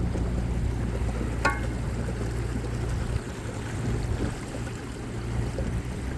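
Boat motor running at a steady hum with water rushing past the hull. The motor's low note eases about three seconds in, and there is a brief sharp tick about a second and a half in.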